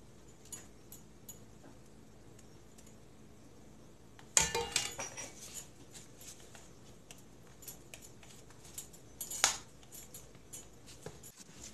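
Metal kitchen utensils clinking and scraping against a pot and a foil baking pan as a thick topping is ladled and spread, with two sharp clanks, about four and nine and a half seconds in, among quieter clicks.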